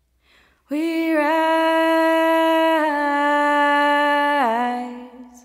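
A woman singing unaccompanied: one long held note that steps down to a lower note about four seconds in and fades away.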